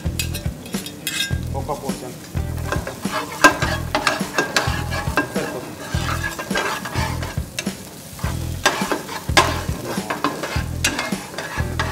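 A metal spatula scraping and tapping in repeated strokes around a non-stick frying pan, while chopped vegetables sizzle in hot oil.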